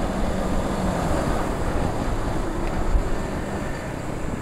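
Motorcycle running at road speed, its engine under a steady rush of wind on the microphone.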